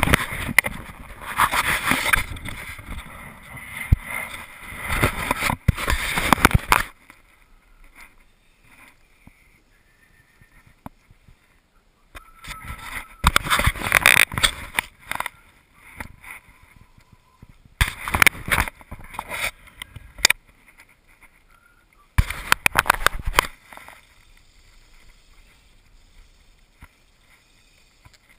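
Bursts of rustling and rubbing right against the camera's microphone as a hand handles the camera, the longest in the first seven seconds, with quiet stretches between them.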